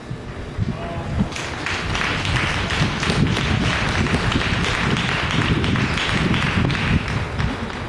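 A crowd clapping, starting about a second and a half in and dying away near the end, over a low wind rumble on the microphone.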